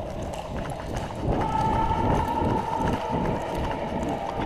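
Footsteps of several people moving off together, boots thudding irregularly on the ground. A steady high tone joins in about a second in.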